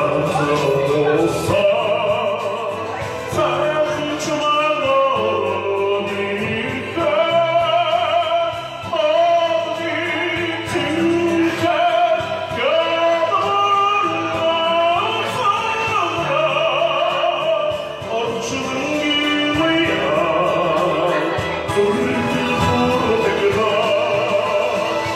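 Music: a voice singing long held notes with a strong wavering vibrato over steady accompaniment.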